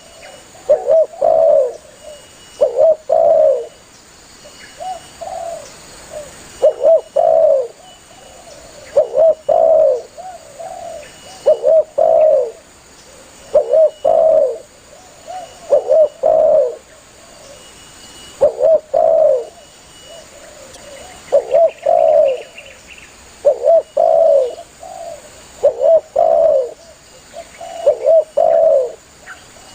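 Spotted dove (tekukur) cooing over and over in the call used to summon other doves, a low phrase of two or three coos about every two seconds.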